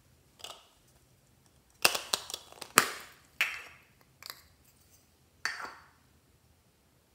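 Hard plastic eyeshadow case being handled and opened over glass dishes: a series of sharp clicks and taps with a brief ring. A quick cluster of several comes about two to three seconds in, and single ones follow at intervals of about a second.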